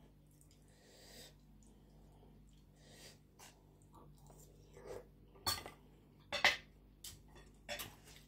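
A person eating close to the microphone: a spoon working on the plate, then a mouthful of rice noodles and papaya salad, with a few short sharp slurps and lip smacks in the second half.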